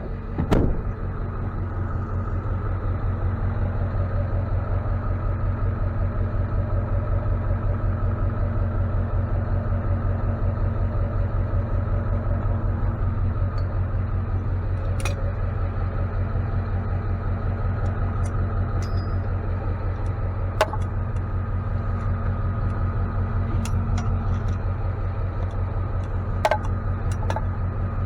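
Tow truck's engine idling steadily, with a few sharp knocks over it, the loudest right at the start.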